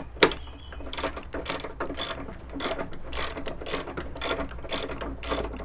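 Socket ratchet wrench clicking in repeated back-and-forth strokes, about two a second, as it backs off a nut.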